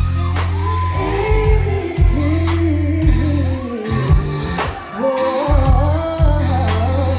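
Live R&B song: a woman's lead vocal sung into a microphone over a band with a heavy, steady bass and drum-kit hits. The bass drops out briefly about four seconds in, then comes back.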